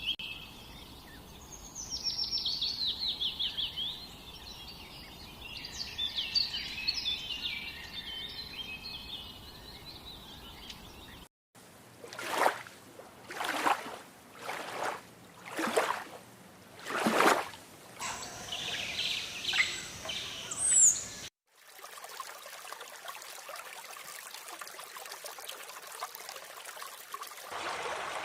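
Wild birds chirping and singing over outdoor ambience. After a break come about six loud rushes of noise roughly a second apart, a few more bird chirps, then a steady rush of flowing water.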